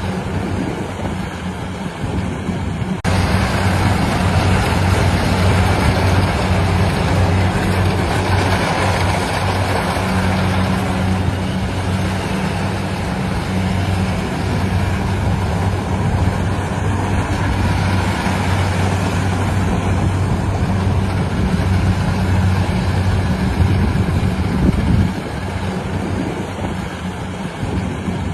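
Engine of a rice-harvesting machine running steadily: a low, even hum under a wide mechanical noise. The sound changes abruptly about three seconds in and drops for a few seconds near the end.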